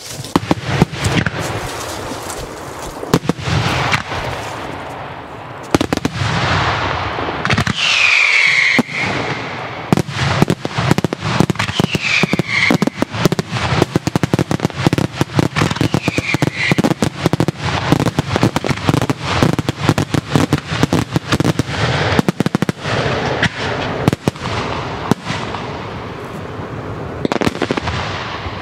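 Daytime fireworks display: a dense, continuous barrage of aerial shell bursts and crackling, with a few falling whistles in the first half.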